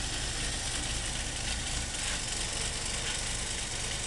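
Volkswagen Vanagon's engine running steadily at low revs as the van crawls over steep slickrock.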